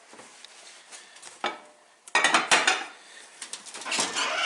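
Dutch oven being handled: a sharp clank about one and a half seconds in, then loud metal clattering and scraping as the lid goes back on and the pot is moved, with more scraping near the end.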